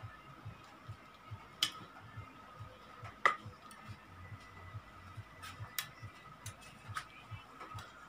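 Plastic clicks and knocks as a small ring light is handled and fitted onto a flexible gooseneck arm, a handful of sharp clicks with the loudest about three seconds in.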